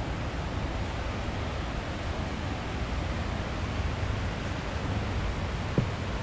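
Steady rushing noise of moving water, with a brief low bump a little before the end.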